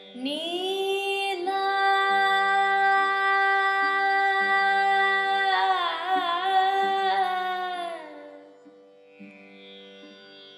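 A woman's voice singing one long held note in Carnatic style. She slides up into the note, wavers through an ornamental oscillation about six seconds in, then fades out at about eight seconds. Under the voice runs a steady drone, which carries on alone after she stops.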